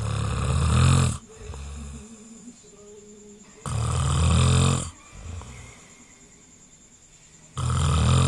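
A person snoring loudly: three long snores about four seconds apart, each followed by a softer breath.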